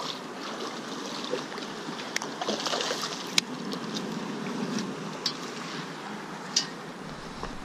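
Hooked bass splashing and stirring the water as it is reeled in to the bank on a baitcasting rod. The water noise is steady, broken by a few sharp clicks of rod and reel handling, the loudest about three and a half seconds in.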